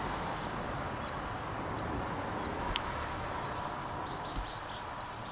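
Small birds chirping in short, repeated high calls over the steady hum of road traffic on the A12.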